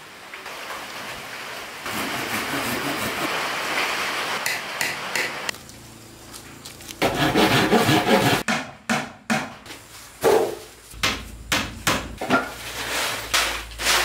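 Hand woodworking: a steady rasping of a tool worked on wood for a few seconds, then, from about the middle, a run of sharp separate knocks of hammering on wood.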